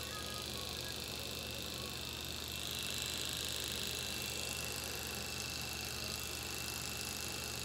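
Electric pet clippers running with a steady buzz as they shave a cat's fur.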